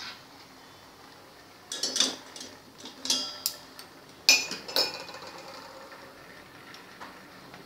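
Kitchen utensils clinking and knocking as a saucepan, strainer and cup are handled for straining a hot herbal decoction: a handful of sharp clinks, the loudest about four and a half seconds in.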